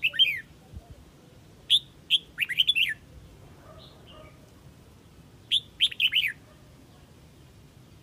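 Huế red-whiskered bulbul giving its flock call: three short bursts of quick, falling chirped notes, at the start, around two to three seconds in, and around six seconds in.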